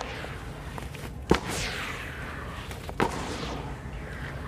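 Wet lumps of sand-cement mix slapped and dropped into water in a basin: two sharp splashy slaps, one just over a second in and one about three seconds in. Each is followed by a fading trickle and hiss of the crumbling wet mix.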